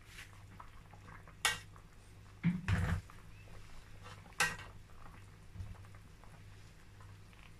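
Metal spoon clinking and scraping against a cooking pot as boiled chicken pieces are lifted out of the stock, with sharp clinks about one and a half, three and four and a half seconds in and a heavier knock near three seconds, over a faint steady low hum.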